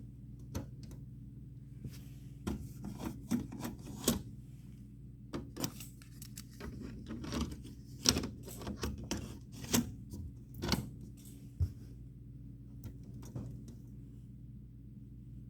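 Irregular clicks and knocks from a cassette deck's transport buttons and mechanism being operated, with a steady low hum underneath.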